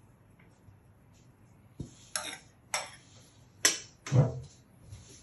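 Metal spoon clinking and scraping against a ceramic bowl as fried rice is scooped out: about five short clinks from about two seconds in, the heaviest near the end.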